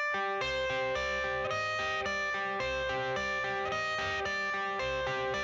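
Background music: a song's guitar intro, plucked notes changing in a steady pattern.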